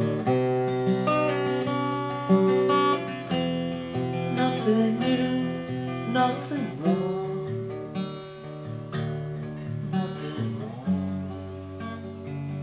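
Steel-string acoustic guitar being played, a run of chords and single notes ringing out, at a steady moderate volume.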